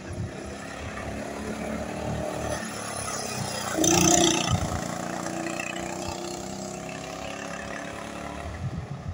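Go-kart engine running as the kart laps the track, its pitch rising and falling through the corners. It is loudest about four seconds in as the kart passes closest.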